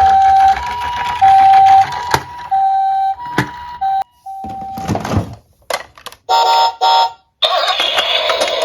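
Electronic two-tone hi-lo siren, a toy ambulance siren sound, alternating between two pitches about every half second, then cutting off a little past halfway. A short whoosh and a few brief electronic blips follow, and music starts near the end.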